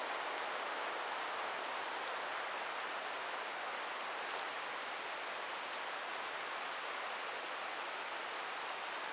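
Steady, even outdoor rushing noise, with two faint ticks near the start and about four seconds in.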